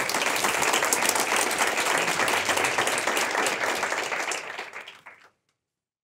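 Audience applauding, a dense clatter of many hands clapping that fades out and stops about five seconds in.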